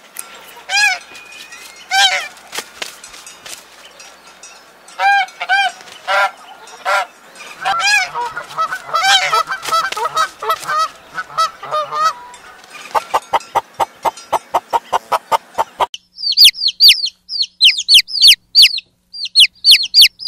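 Geese honking: loud, repeated calls, some single and some in quick runs, breaking into a fast chatter of short notes. About three-quarters of the way through this gives way to a rapid series of high-pitched peeping calls.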